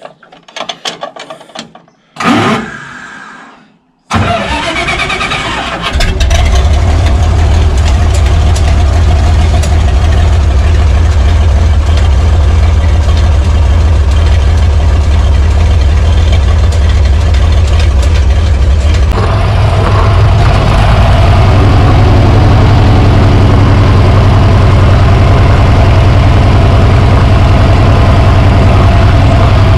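Oliver 1850 tractor engine being started: a few clicks and a short whir, then cranking from about four seconds in until it catches about six seconds in and runs steadily. Its note changes about nineteen seconds in as the tractor gets under way.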